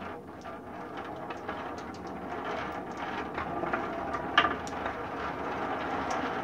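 Several marbles rolling down a wooden spiral ramp: a steady rolling rumble scattered with small clicks that grows louder as more marbles get going. One sharp click stands out about four and a half seconds in.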